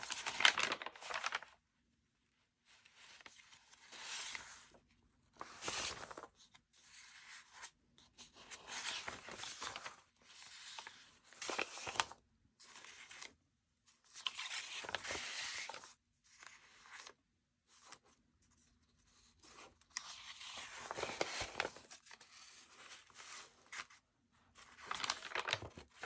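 Loose sheets of paper, gel-press art prints, being leafed through and slid over one another by hand: irregular bursts of paper rustling and sliding, a second or two each, with short pauses between.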